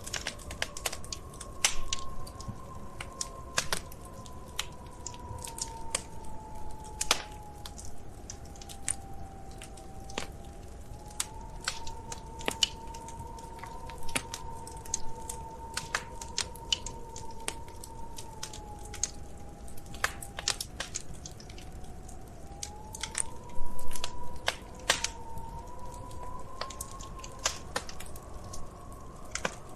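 Wood fire crackling, with irregular sharp pops and snaps and a louder flurry of pops about three-quarters of the way through. Underneath runs a soft steady tone that drifts slowly up and down in pitch.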